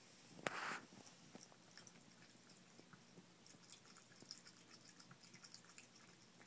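A cat lapping water at a bathroom sink faucet: faint, scattered wet licking clicks, with one brief louder noise about half a second in.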